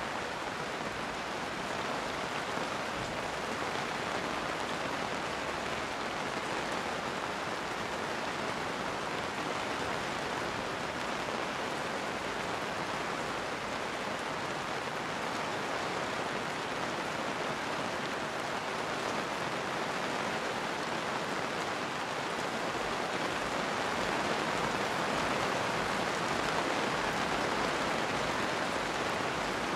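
Steady rain falling, an even hiss that grows slightly louder near the end.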